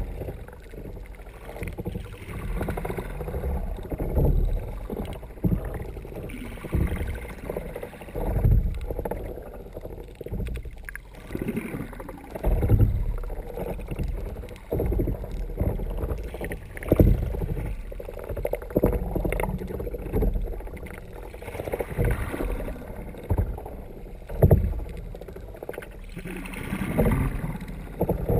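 Water sloshing and thudding against a kayak hull as it moves along, heard muffled through a GoPro dive housing mounted under the hull, surging roughly every two seconds.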